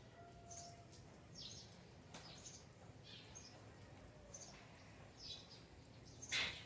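Faint high chirps, each falling in pitch, repeating roughly once a second, with a brief loud noise near the end.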